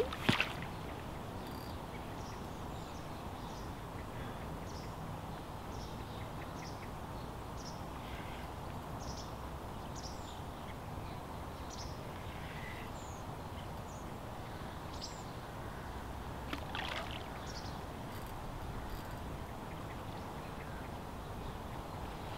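Steady outdoor wind and river-water noise, with faint short high bird chirps scattered through it and a brief louder scuffle about 17 seconds in.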